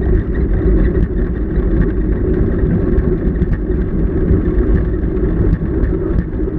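Steady low rumble of wind and tyres on the salt heard inside the cockpit of the KillaJoule electric streamliner motorcycle as it rolls along, with faint light ticks over it.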